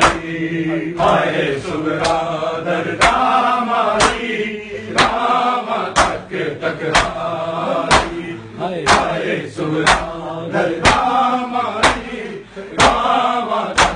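Male voices chanting a noha lament in a steady rhythm, while a crowd does matam, beating their chests with open hands: a sharp, loud slap about once a second, in time with the chant.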